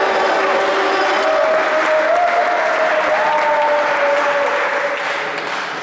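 Spectators applauding and cheering with long held shouts after a table tennis point, dying down near the end.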